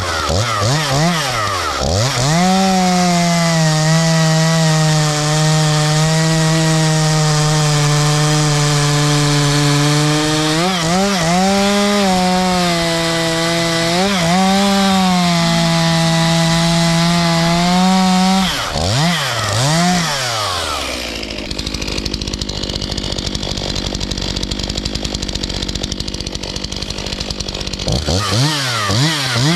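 Stihl MS 251 two-stroke chainsaw cutting ash wood. The engine revs up and holds a steady pitch under load, with brief rev swoops about 11 and 14 seconds in. Around 19 seconds it revs down, and for several seconds there is a rougher, noisier sound without the clear engine tone; near the end it revs up again.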